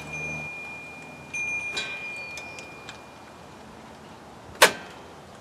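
Light metallic clicks and clinks with a thin steady ringing tone as the floor jack slowly lowers the Jeep's rear axle away from a coil spring held in spring compressors. One sharp metallic clink comes about four and a half seconds in and is the loudest sound.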